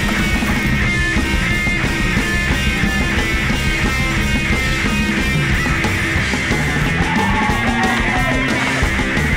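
Loud punk rock music, playing steadily throughout.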